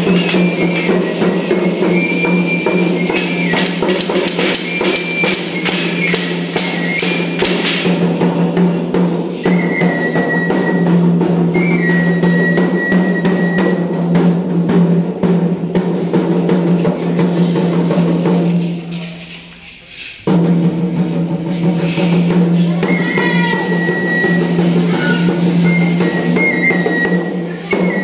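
Drum-led music for a traditional Mexican indigenous-style dance: rapid, continuous drumming under a high melody line that steps up and down. The music drops out briefly about two-thirds of the way through, then starts again.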